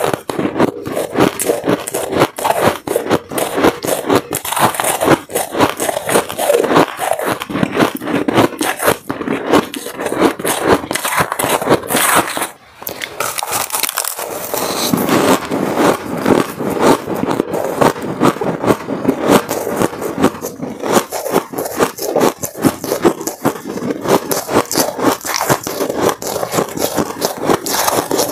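Close-miked crunching of shaved ice being bitten and chewed, mixed with a metal spoon scraping and scooping through the ice. A dense, crackly crunch with a short break about halfway.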